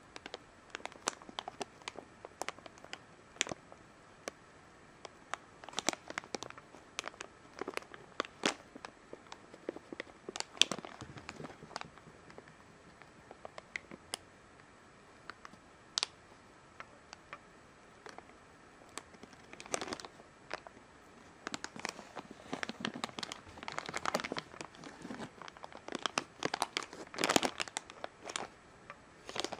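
Thin clear plastic bag crinkling as it is handled, in scattered sharp crackles that come thicker and faster in the second half.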